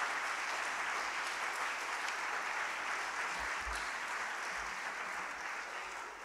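Audience in a lecture hall applauding steadily, the clapping beginning to die away near the end.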